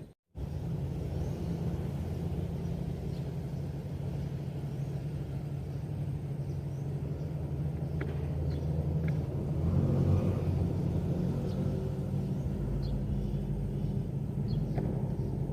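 An engine running steadily, a low droning hum that swells a little about ten seconds in, with a few faint clicks over it.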